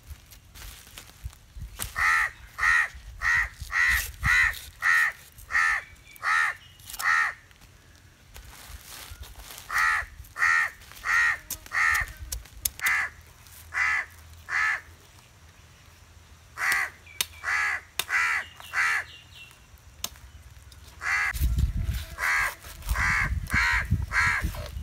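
Crows cawing in runs of quick, evenly spaced calls, two or three a second, with short pauses between runs. Under them, a large knife scrapes and cuts at a whole skipjack tuna on a sack, with heavier knocks and rustling from about three seconds before the end.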